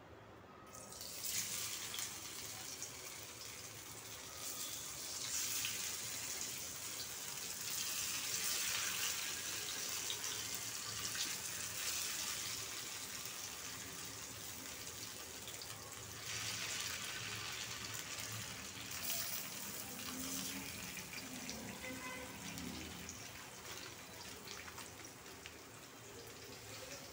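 Spiral-cut stuffed rolls frying in hot oil in an iron kadai: a steady sizzling hiss with small crackles, starting about a second in.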